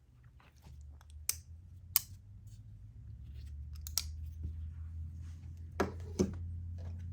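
Folding knives being handled and set down side by side: scattered sharp clicks and taps, five of them standing out, over a steady low hum.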